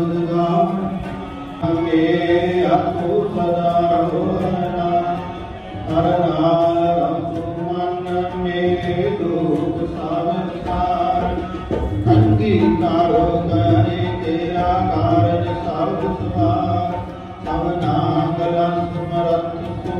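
Sikh Gurbani kirtan: a ragi singing a shabad in long phrases over sustained harmonium tones, with tabla beats.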